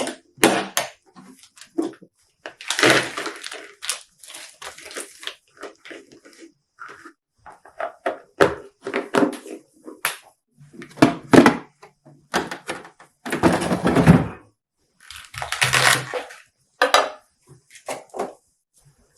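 Kitchen items being handled and set down: irregular knocks, clinks and clatters of containers and dishes, with short rustling stretches in between.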